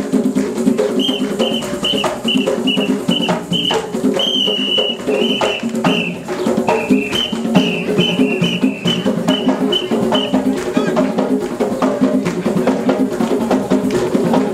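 Live hand-drum ensemble playing a fast, busy rhythm. From about a second in until about ten seconds, a run of short, high, piercing notes sounds over the drums.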